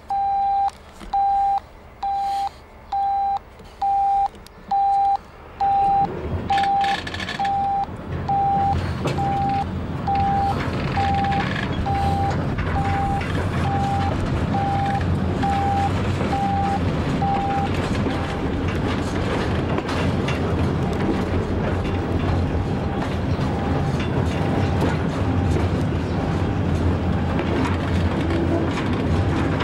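A shunting radio sends its repeating beep signal, the go-ahead tone for a push-back, about once a second. About six seconds in, a steady low rumble starts as the train gets moving, pushed by diesel locomotive 67457. The beeps go on faintly under the rumble.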